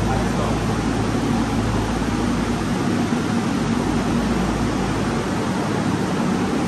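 Steady, loud rushing of air with a low hum underneath, as from a large fan running.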